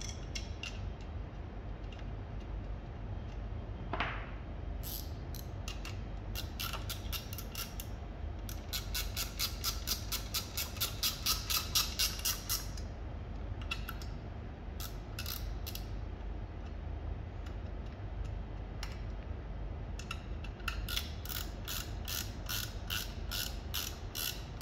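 Two runs of fast, even ratcheting clicks, about six a second, from a ratchet wrench being worked while a fitting on the espresso machine's group head is done up, with a few scattered metal clicks between them.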